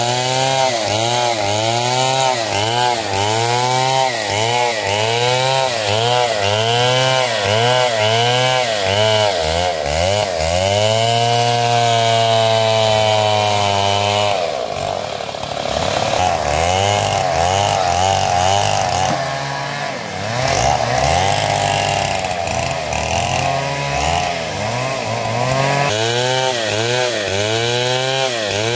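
Stihl MS 070 two-stroke chainsaw cutting wood under load, its engine pitch rising and falling about once a second as the saw is worked through the cut. About halfway through, the pitch drops and wavers irregularly for several seconds. The regular rise and fall returns near the end.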